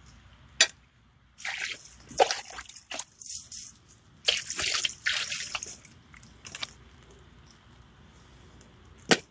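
Water pouring and splashing into a plastic bowl in two spells of a couple of seconds each, with a sharp click near the end.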